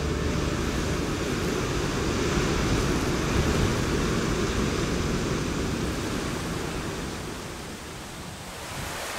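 Wind buffeting the microphone outdoors: a steady rushing roar, heaviest in the low end, that eases off about eight seconds in.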